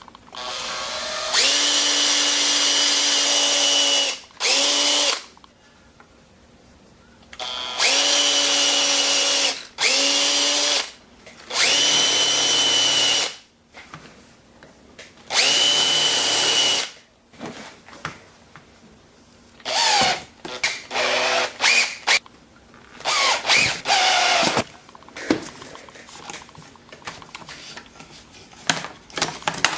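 Power drill running in repeated bursts. First come several steady runs of one to three seconds, each whining up to speed and winding down. Then, later on, come shorter stop-start bursts with the pitch wavering as the trigger is feathered.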